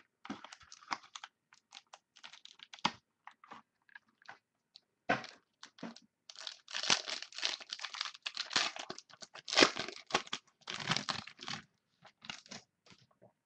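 A trading-card pack being opened by hand: the wrapper crinkling and tearing in irregular crackles, heaviest and loudest through the middle of the stretch.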